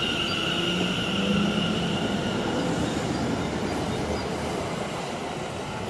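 London Overground electric multiple unit moving past the platform: a steady rumble of wheels on the rails, with a high electric whine that fades out partway through.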